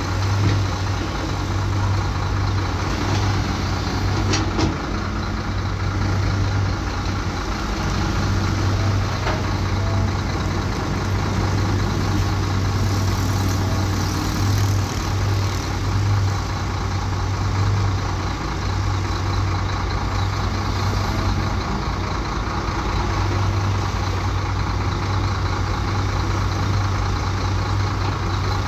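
Heavy earthmoving machine's diesel engine running steadily with a deep, even drone, with a couple of short sharp knocks about four and nine seconds in.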